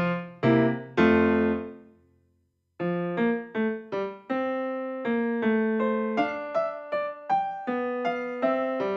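Background piano music. The notes die away to a brief silence about two seconds in, then the piano starts again with a steady run of notes.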